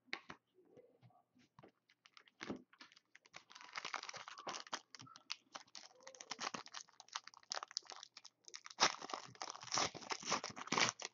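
Foil wrapper of a trading card pack crinkling and tearing as it is opened by hand, with small clicks of cards being handled. The crinkling comes in two spells: one about three seconds in, and a denser one near the end.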